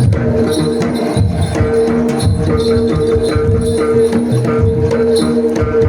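Live Javanese jaranan ensemble music: fast, dense drum and percussion strokes under a long held melodic note.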